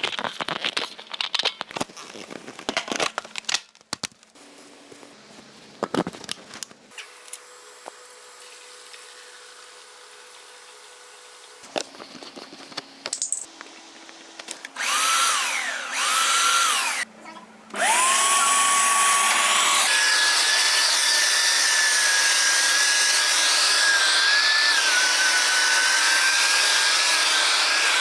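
Electric motor of a carpet-washing machine started in short bursts, then spinning up and running steadily with a high whine. Before it starts there are scattered clicks and handling rattles.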